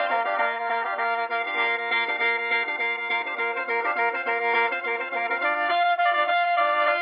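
Background music of slow, held instrumental notes.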